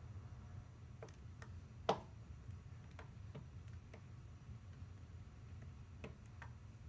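Soldering iron melting and pressing along a crack in an ATV's plastic front fender: faint, irregular ticks and clicks, the loudest about two seconds in, over a low steady hum.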